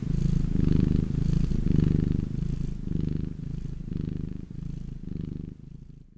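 Domestic cat purring close up, a steady rhythm of in-and-out breaths that fades toward the end.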